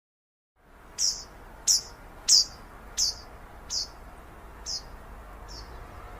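A bird calling in a series of seven short, sharp chirps at an even pace, each dropping quickly in pitch, the last few fading, over a steady background hiss. The sound cuts in about half a second in, after dead silence.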